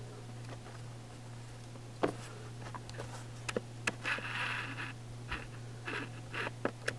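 Scattered light clicks and a brief rustle from metal bracelets handled on a wrist, the loudest click about two seconds in, over a steady low electrical hum.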